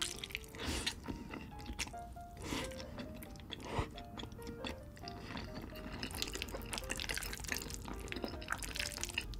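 Soft background music with short melodic notes, over close-miked wet slurping and chewing of creamy fettuccine alfredo noodles, with a few sharp wet smacks.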